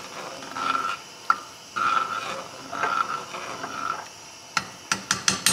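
A utensil stirring seasoned food in cookware, a series of short scraping strokes, followed near the end by a few sharp clicks and knocks.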